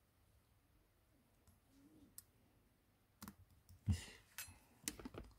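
A few small clicks and taps of a smartphone and small tools being handled on a workbench, starting a little past halfway, with one louder knock among them.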